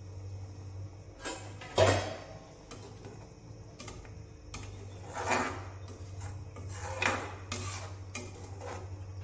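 Steel lid lifted off a stainless-steel kadai with a loud metal clank about two seconds in, then a slotted metal spatula scraping and stirring potato curry in the pan in four or five strokes.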